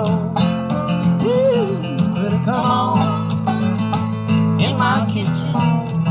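Acoustic blues played by a small acoustic band: guitars keep up steady low chords while a lead line above them bends and wavers in pitch.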